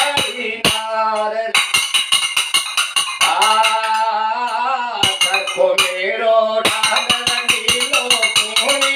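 A pair of small metal hand cymbals (manjira) clinking in a quick, steady rhythm. A man's voice sings a bhajan over them in long held phrases.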